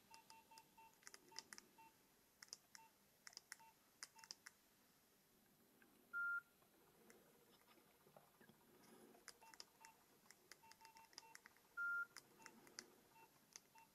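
Nokia 2760 keypad tones as its buttons are pressed through the menus: a faint run of short beeps with soft key clicks. Two longer, higher beeps stand out, about six and twelve seconds in.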